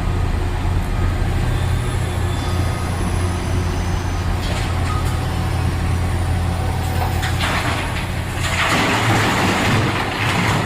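A heavy diesel engine running steadily with a deep drone. About eight and a half seconds in, a loud hiss starts over it and lasts about two seconds.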